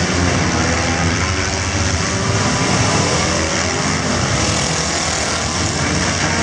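Several compact four-cylinder stock cars' engines running and revving together, a continuous engine din whose pitch rises and falls.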